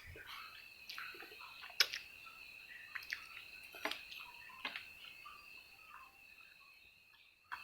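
Faint chewing and mouth clicks from someone eating instant noodles, with a few sharp clicks roughly once a second. A steady high-pitched whine runs underneath.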